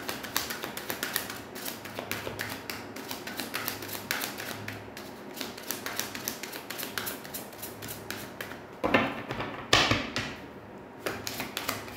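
Tarot cards being shuffled by hand: a rapid run of soft clicks and flicks, with two louder rustling knocks about nine and ten seconds in.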